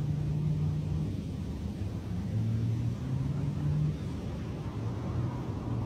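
Low steady rumble with a hum that steps up and down in pitch a few times.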